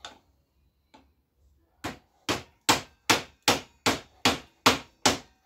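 A red mallet striking a small metal motorcycle part: a couple of light taps, then a steady run of about ten sharp blows at roughly two and a half a second. The part would not slide into place.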